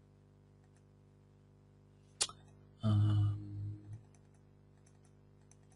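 Faint computer mouse and keyboard clicks over a steady low hum, with a sharp click a little over two seconds in and a short, louder low noise about a second later.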